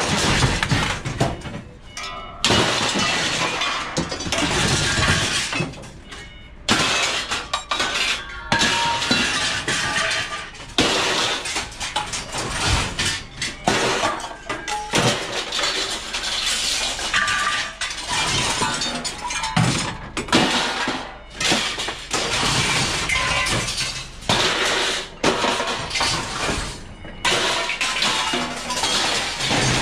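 Short scrap steel being thrown onto a pile: a dense clatter and crash of metal on metal that breaks off and starts again abruptly many times.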